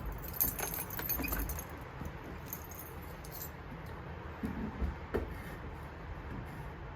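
Small metal objects clinking and rattling as they are handled: a flurry of jingling in the first second and a half, then a few separate clinks about five seconds in.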